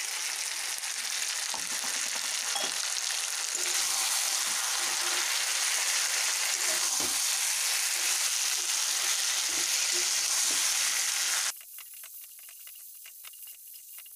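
Chicken and potato pieces sizzling as they fry in oil and spices in a metal kadai, stirred with a spatula that scrapes and knocks against the pan. The sizzle cuts off suddenly near the end, leaving fainter scraping and clicks.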